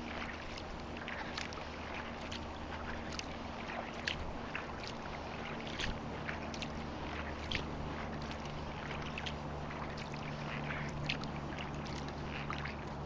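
Small waves lapping and splashing against a kayak's hull: many short, irregular splashes over a steady wash of water.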